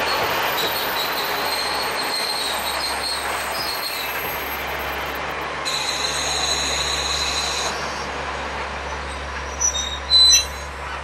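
KiHa 40-series diesel railcar train running in and braking to a stop, its wheels and brakes squealing in high whines that come and go over a steady rumble and the engine's low drone. A brief loud burst comes near the end as the train halts.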